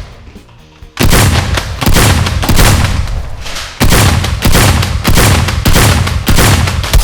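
Rapid automatic gunfire in two long bursts, the first starting about a second in and the second starting just before the four-second mark, over background music.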